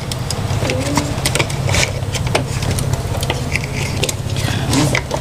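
Small clicks and taps of plastic and metal printer parts being handled and lined up by hand, over a steady low rumble of road traffic.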